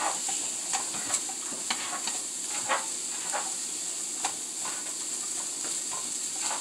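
Cauliflower rice frying in butter and Parmesan, stirred in a frying pan with a silicone spatula: a steady high sizzle with irregular scraping strokes about once or twice a second.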